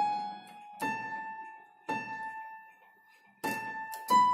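Casio CT-X9000IN electronic keyboard, a slow one-finger melody: about five single notes struck one at a time, each left to ring and fade before the next, the last a little higher.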